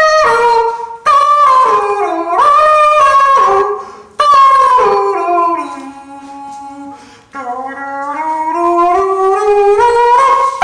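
Background music with a wailing lead line whose pitch slides, dipping low and climbing slowly back up in the middle.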